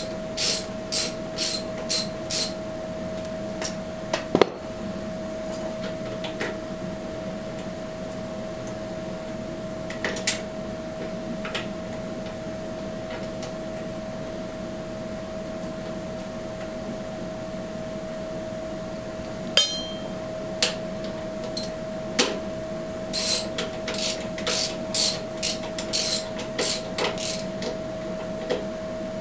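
Hand hammer tapping on metal: runs of sharp strikes, about two a second, at the start and again in clusters near the end, with a few single knocks between. A steady faint hum runs underneath.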